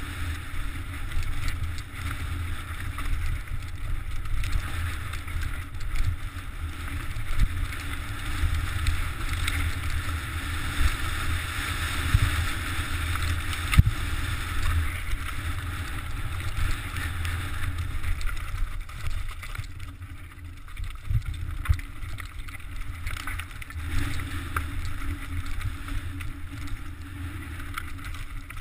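Mountain bike rolling fast down a rocky, gravelly trail: tyres crunching over loose stone and the bike rattling, with wind buffeting the camera microphone as a steady low rumble. A sharp knock from a hard hit about fourteen seconds in is the loudest moment.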